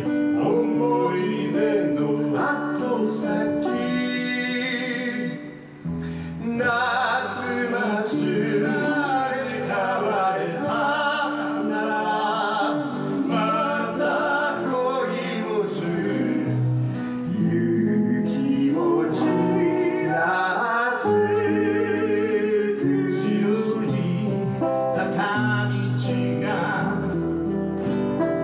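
Male voices singing a song live to two guitars, an acoustic guitar and an archtop guitar, with a brief break in the music about five and a half seconds in.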